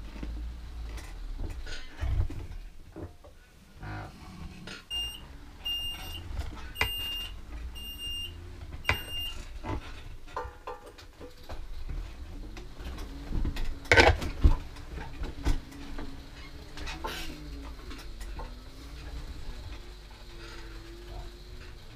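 Mobility scooter being driven, with a low rumble and rattle under it. About a fifth of the way in comes a run of about six short, high electronic beeps roughly a second apart, and past the middle a couple of sharp knocks.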